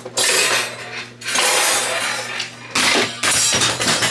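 Kitchenware clattering and rattling in several long bursts as a jumble of items tumbles onto the floor.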